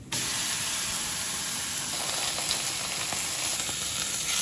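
Thin beef steaks sizzling steadily on a hot flat-top griddle.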